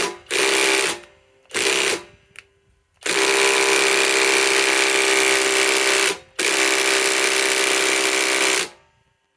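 Cordless impact driver hammering as it backs out a 6-inch lag screw from wood. It runs in bursts: two short ones, then a long run of about three seconds and another of about two seconds after a brief stop.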